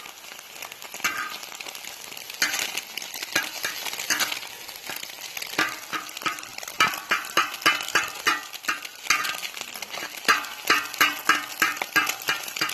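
Breakfast sizzling on a steel plow-disc cooker while a spatula stirs and scrapes across the disc. From about halfway the scraping strokes come quickly and regularly, about two a second.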